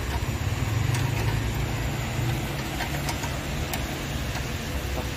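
Steady low mechanical hum, with a few light clicks as a hose fitting on a coffee machine's pump is handled and refitted.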